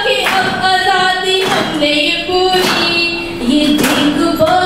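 A woman's voice singing lines of Hindi poetry in a melodic recitation, holding some notes. A sharp knock sounds about once a second.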